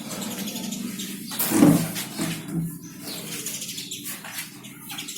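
A pet parrot calling, with flapping wings. The loudest sound is a single burst about a second and a half in.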